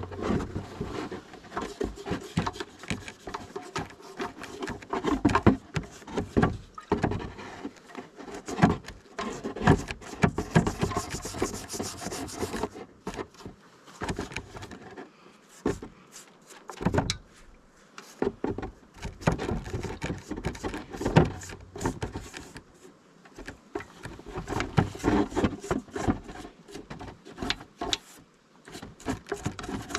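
Hands-on repair work: irregular knocks, clicks and rubbing or scraping of tools against parts, with a stretch of hissing about ten to twelve seconds in.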